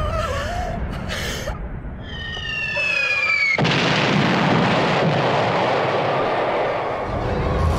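An incoming artillery shell whistles, falling in pitch, then explodes loudly about three and a half seconds in. The blast noise carries on for several seconds before easing off near the end.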